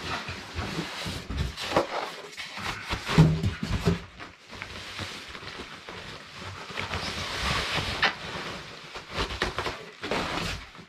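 Thin plastic wrapping crinkling and rustling in irregular bursts as it is handled and pulled off a large boxed speaker, with a few dull knocks about three seconds in.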